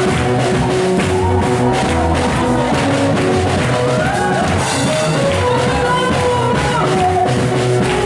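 Live praise band music with a drum kit, held instrument notes and some singing, at an even, loud level.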